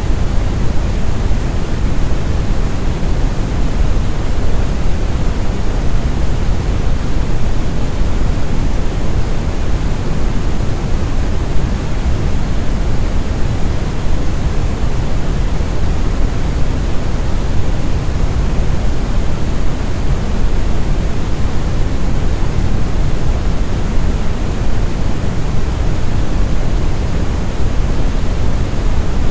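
Synthesized brown (red) noise: a steady, deep rumbling hiss with most of its weight in the bass, unchanging throughout.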